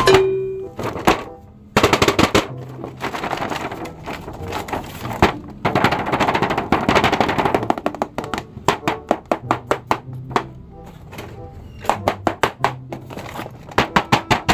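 A cardboard toy box with a clear plastic blister window being handled, making crackling and rapid runs of clicks and taps, with faint background music.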